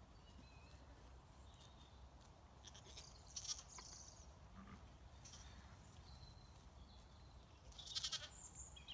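Lambs bleating faintly, twice: short trembling calls, the second a little after the first and about as loud.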